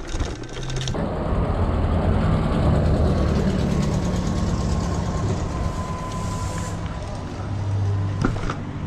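A mountain bike rattling over cobblestones for about a second. After a sudden change there is steady riding and traffic noise: a motor vehicle's low engine rumble mixed with road and wind noise, with a faint thin steady whine near the middle.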